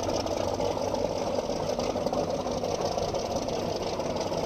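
The boat's motors idling steadily while it waits to leave the lock.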